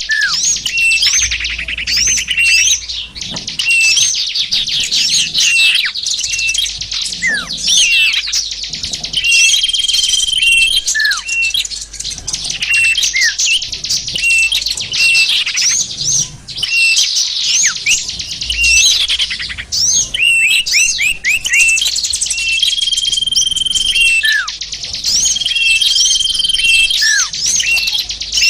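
A dense, layered chorus of many small songbirds chirping, trilling and calling over one another, with short held whistles and quick downward-sliding notes. It is a lure (pikat) recording of small-bird calls, played to draw in small wild birds.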